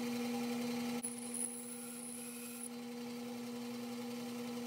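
Bandsaw motor running with a steady hum while a short slot is cut into a small carved wooden lure tail; about a second in, a faint high whine joins for under two seconds.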